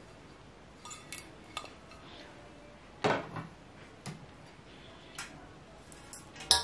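Serving trays clattering as they are handled, with several separate clinks and knocks. The loudest come about three seconds in and just before the end.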